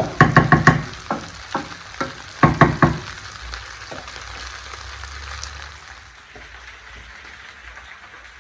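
Food sizzling as it fries in a pan, with a utensil knocking and scraping against the pan as it is stirred: a quick run of knocks just after the start, single knocks, then another run about two and a half seconds in.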